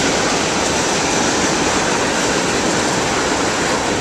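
Oil train of black tank cars rolling past, a steady, even noise of steel wheels on the rails.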